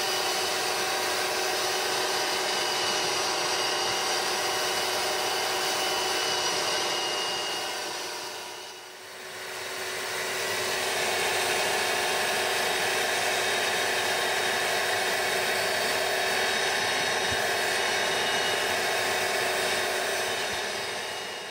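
Rug Doctor carpet cleaning machine's vacuum motor running steadily as its upholstery hand tool is drawn over a car carpet, extracting. The sound drops away briefly about nine seconds in, then resumes at the same level.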